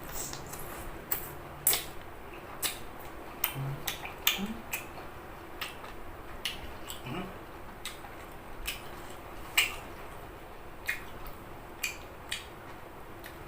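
Irregular clicks and taps of cutlery against dishes while eating steamed squid, about twenty sharp ticks scattered through the stretch.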